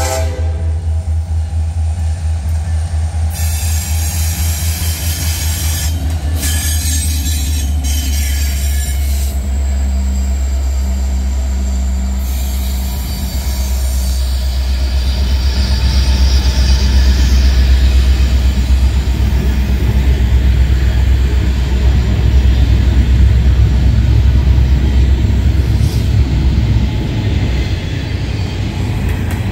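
Union Pacific diesel-electric freight locomotives, including an EMD SD70M, pass close by with a heavy engine rumble, followed by double-stack intermodal well cars rolling on the rails. The rumble grows louder from about halfway through, as the locomotives and the first cars go by.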